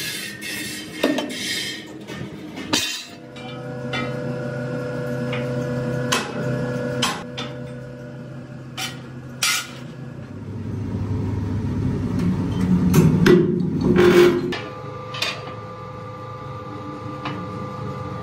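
Heavy steel plates clanking and knocking as they are handled and stacked at a press, with irregular sharp metal strikes over a steady machine hum. The clatter is loudest a little past the middle.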